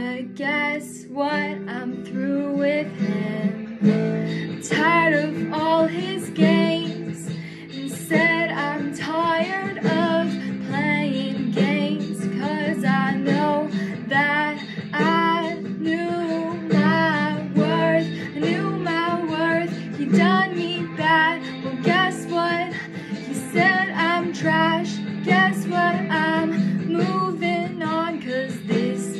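A young woman singing a pop song over a guitar accompaniment, her held notes wavering in pitch over the steady chords.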